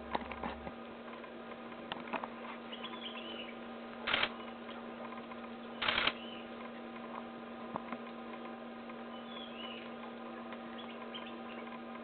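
Steady low electrical hum with a few faint clicks and faint high bird chirps. Two short hissy bursts of noise, about four and six seconds in, are the loudest sounds.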